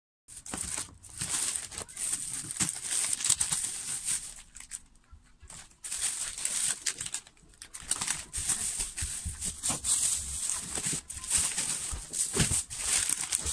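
Plastic grocery bags and food packaging crinkling and rustling as groceries are handled, with a few brief knocks, and a short lull about five seconds in.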